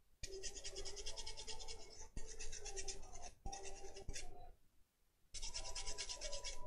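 A toothbrush scrubbing a laptop motherboard in quick back-and-forth strokes, in bouts with brief breaks and a longer pause just before five seconds in. It is cleaning liquid-damage corrosion off the board.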